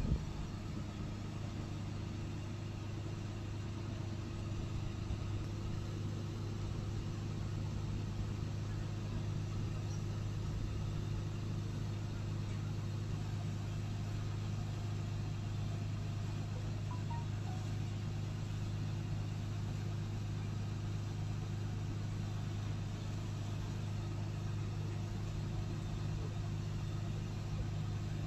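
Steady low hum of an engine running at a constant speed, the mobile crane's engine holding its pace while the statue is lowered; it does not rise or fall.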